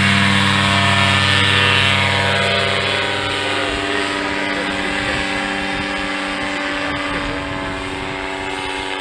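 Paramotor trike's engine and propeller running at full power through the takeoff, a steady drone that grows fainter as the trike climbs away.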